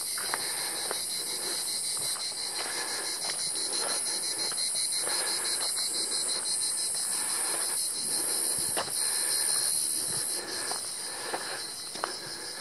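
Cicadas in a dense, high, steady chorus with a fast fine pulse, over footsteps on a dry dirt and gravel path about twice a second.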